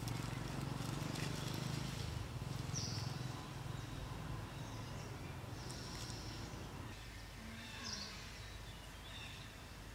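Outdoor ambience: a few short, high bird chirps over a low steady hum that fades after the first few seconds.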